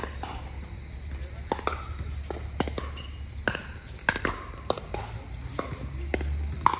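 Pickleball paddles striking a hard plastic ball in a rally: sharp, hollow pocks every half second or so, irregular, over a steady low hum.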